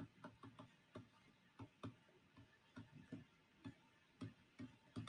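Faint, irregular light clicks, two or three a second, over near silence.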